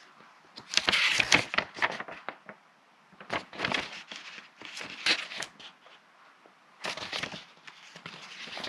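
Crinkling and crackling of drone packaging being handled, in three bursts with short pauses between.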